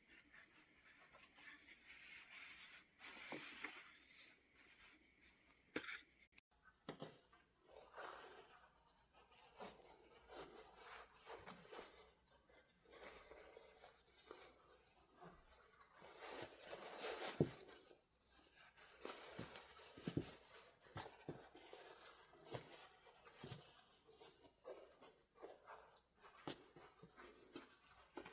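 Faint hand sewing: irregular soft scratching and rustling as a needle and thread are drawn through quilted cloth, with small clicks and a louder stretch of cloth handling past the middle.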